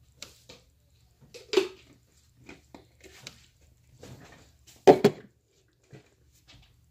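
Irregular knocks, rustles and clatters of someone rummaging through things while searching, with two louder thumps about one and a half seconds and five seconds in.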